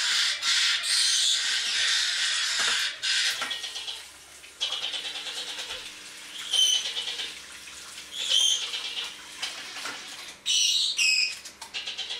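A steady rasping noise for the first few seconds, then hand-reared parrot chicks giving rapid pulsing begging calls, with several louder squawks.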